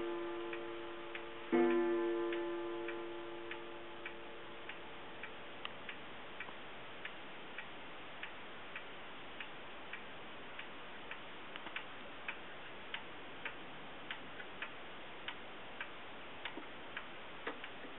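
A 1930s pendulum wall clock strikes once on its gong about a second and a half in, sounding the hour, and the ringing note fades over a couple of seconds. Then the movement ticks steadily, a little under two ticks a second.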